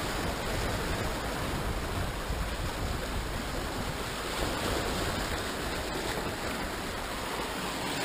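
Sea surf washing and churning over shore rocks: a steady rush of breaking water.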